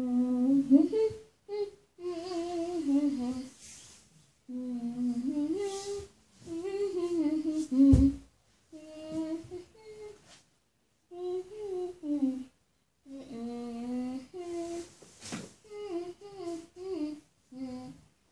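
A girl humming a wordless tune in short phrases with brief pauses between them. A single thump about eight seconds in, and a sharp click near the end.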